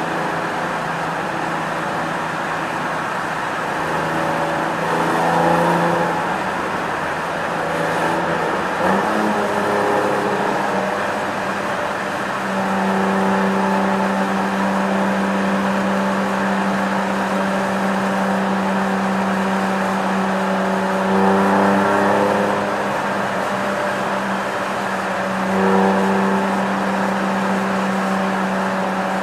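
Porsche 996 Carrera 4 flat-six engine and factory flap exhaust running at steady cruise, heard from inside the car and echoing in a road tunnel. The flap is held open because the flap relay has been removed. The note climbs about a third of the way in and then holds steady at the higher pitch, with a few short swells in loudness where the throttle is opened.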